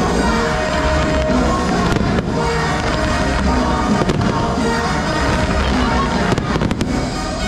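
Aerial fireworks bursting over loud show soundtrack music, with a cluster of sharp bangs about six to seven seconds in.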